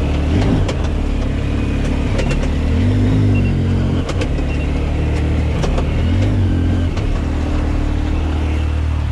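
2020 Yamaha YXZ1000R SS SE side-by-side's three-cylinder engine running under way, its pitch rising and falling three times as the throttle is worked. Several sharp knocks and rattles are heard along the way.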